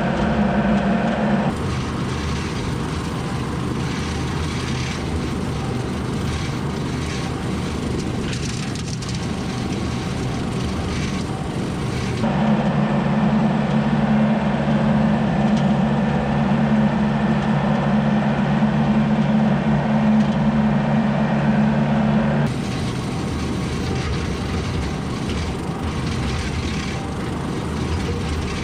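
Vehicle running and driving, a steady low hum with road noise, heard in several joined clips whose sound changes abruptly about 1.5, 12 and 22 seconds in.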